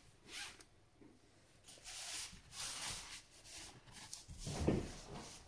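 A series of short rubbing strokes on a laptop's hinges as they are cleaned, a little over half a dozen of them, with a stronger, heavier one near the end.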